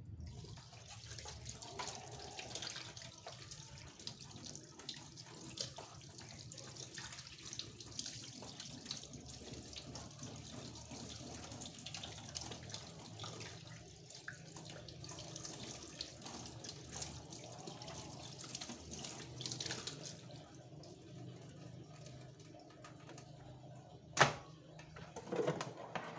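Tap water running into a sink with splashing, stopping about twenty seconds in. A sharp knock follows near the end.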